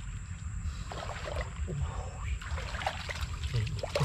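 Shallow muddy water sloshing and splashing in short irregular bursts as a person wades through it and moves a woven bamboo basket.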